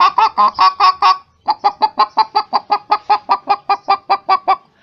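A person imitating a hen clucking with the voice: a quick run of short clucks, a brief break just after a second in, then a longer run of evenly spaced clucks, about seven a second.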